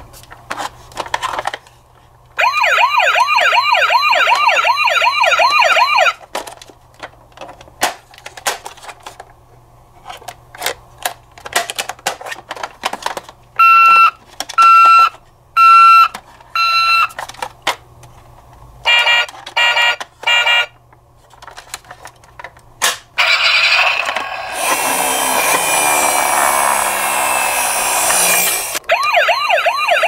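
Toy ambulances' electronic sound modules: a fast-warbling siren for a few seconds, later four short beeps at one pitch, among the clicks and rattles of plastic toy vehicles being handled in a cardboard box. Near the end comes a loud rushing noise, then the warbling siren starts again.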